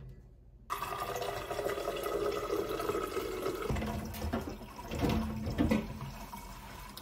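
Water from a countertop water dispenser's tap running into a tumbler. It starts suddenly about a second in and runs steadily for about three seconds, followed by a few low knocks of the tumbler being handled.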